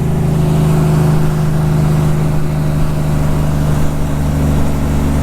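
Heavy grain truck's diesel engine running steadily under load at highway speed.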